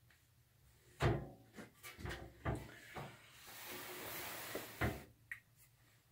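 Metal parts being handled and fitted on an old Kennedy steel toolbox: a few sharp knocks and clanks, with a hissing scrape for about a second and a half in the middle.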